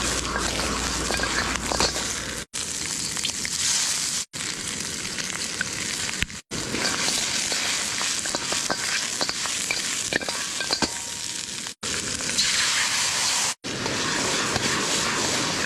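Beef chunks sizzling and frying in a hot pan, a steady hiss with scattered spattering pops. The sound cuts out for an instant several times.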